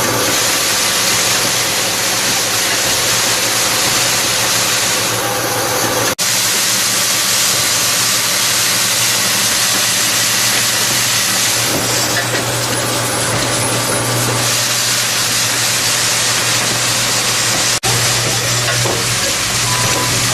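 Roofing-nail coil collator machine running as it welds nails onto wire: a loud, steady hissing machine noise with a low hum, cutting out for an instant twice.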